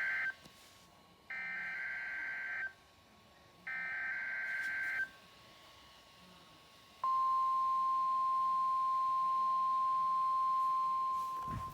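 NOAA Weather Radio alert signalling: the end of one and then two more short raspy bursts of SAME digital header data, followed about seven seconds in by the steady 1050 Hz warning alarm tone, sounded for the weekly test.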